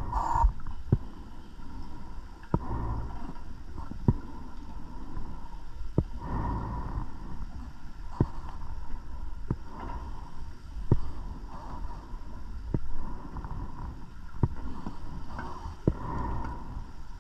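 Scuba diver breathing underwater: a burst of exhaled bubbles from the regulator every three to four seconds, with sharp clicks in between.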